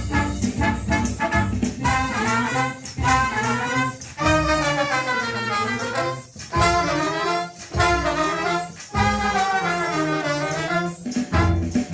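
Luk thung band playing, brass to the fore: a long, wavering melody line over a steady bass.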